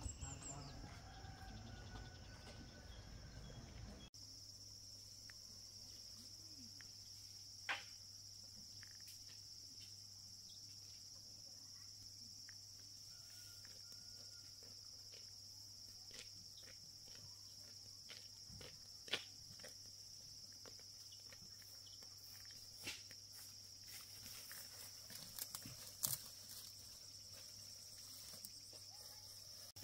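Faint outdoor ambience: a steady high-pitched insect drone under a low hum, with a few sharp clicks scattered through.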